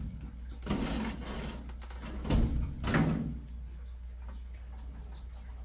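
Rummaging: objects being handled and moved, with a few knocks and clatters. The loudest come around two and a half to three seconds in, followed by quieter handling.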